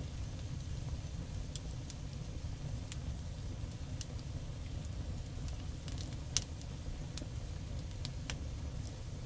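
Oil crackling and popping on the hot steel top of a gas griddle as it is wiped on for seasoning, in scattered sharp ticks over a steady low rumble, with one louder pop about six seconds in.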